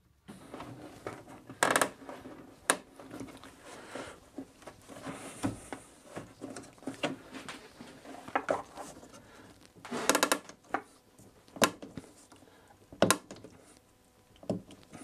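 Irwin Quick-Grip trigger clamp being pumped tight: irregular clicks and clacks of the trigger and bar, with a quick run of several clicks about ten seconds in.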